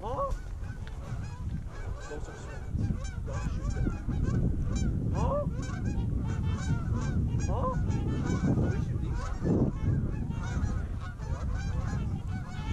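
A flock of Canada geese honking and clucking, many calls overlapping, over a steady low rumble.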